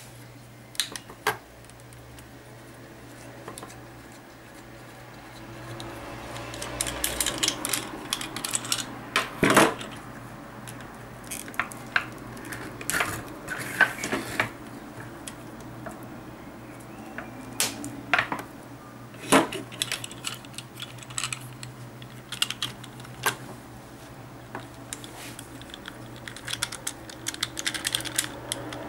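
Irregular clicks, taps and knocks of a plastic clamp mount being handled and fitted onto a quadcopter's frame arm, over a low steady hum.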